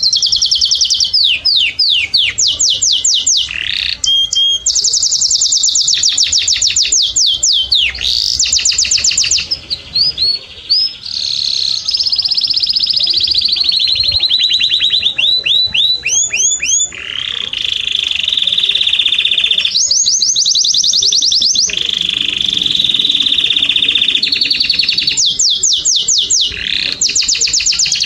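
Canary singing a long unbroken song: fast high-pitched trills of rapidly repeated notes and sweeping rolls. The song switches from one trill type to the next every second or two, with a short dip about ten seconds in.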